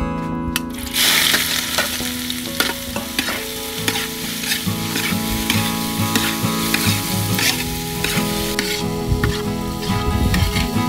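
Shredded ginger hitting hot oil in a steel wok, sizzling loudly from about a second in, then frying while a metal spatula stirs it, scraping and clicking against the wok.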